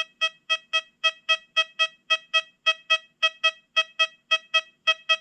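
XP Deus 2 metal detector in its General program, sounding short beeps at one steady pitch, about four a second and often in pairs. This is its target tone for an 1855 copper large cent as the coin passes back and forth over the coil.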